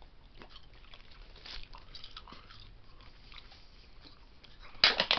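Faint mouth noises and small crackles after a drink from a can, then a short cluster of sharp clicks and rattles near the end.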